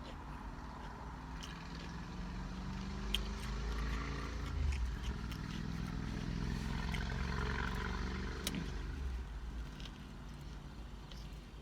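Small wet clicks and smacks of chewing a sandwich, over a low engine hum that swells from about two seconds in and fades near the end, like a vehicle passing close by.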